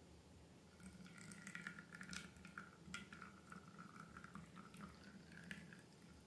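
Faint wet clicking and trickling of slime or liquid being poured and worked, with many small sticky clicks from about a second in until near the end.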